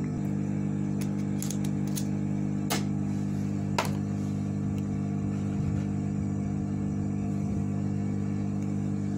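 Steady hum of a hot air rework station's blower, with a few light clicks and taps of tools in the first four seconds.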